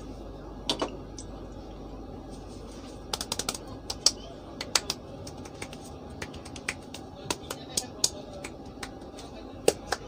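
A barber's hands striking and snapping on a man's head during an Indian head massage: sharp, irregular clicks and pats. A pair come about a second in, then a loose scatter of them, several a second at times, from about three seconds on.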